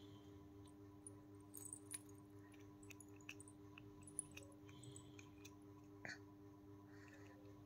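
Near silence: a steady low hum with faint, scattered clicks of a toddler handling a small plastic object, and one sharper click about four seconds in.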